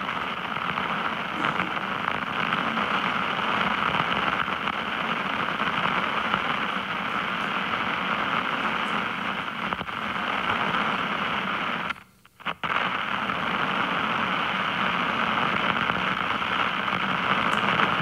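Contact-mic recording of a large handmade stylus dragged through snow and ice, played back over loudspeakers: a steady, crackly scraping noise carrying the snow crystals and cracks in the ice. It cuts out briefly about two-thirds of the way through.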